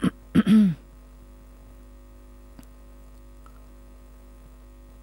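A brief spoken sound in the first second, then a steady electrical mains hum with one faint click midway.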